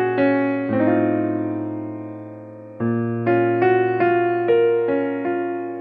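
Background music on a piano-like keyboard: a slow melody of struck notes over a held low note. About a second in, a chord rings and fades, and new notes start just before the three-second mark.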